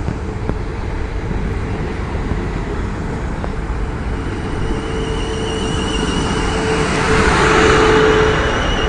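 South West Trains Class 450 Desiro electric multiple unit rolling past at low speed, a steady rumble of wheels on rail. From about halfway a steady hum and a high wavering whine come in, and the sound swells to its loudest near the end.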